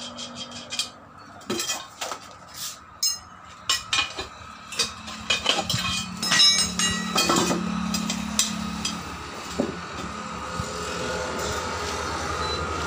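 Irregular clinks and knocks as a two-wheeler's metal wheel rim and tyre are handled and shifted on a concrete floor while the inner tube is worked out, with a low steady hum underneath in the second half.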